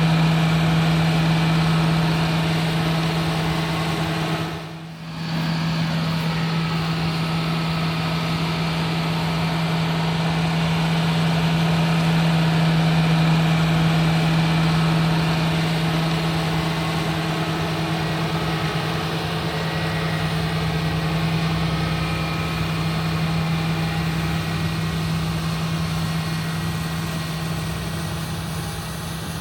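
A John Deere 8270R tractor's six-cylinder diesel running steadily with a constant low hum while pulling a liquid-manure tanker. The sound dips briefly about five seconds in.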